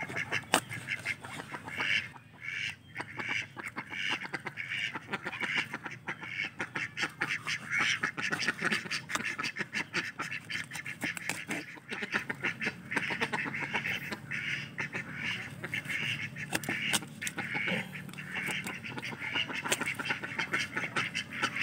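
A flock of domestic ducks quacking over and over, with occasional knocks of a cleaver cutting fish on a wooden chopping block.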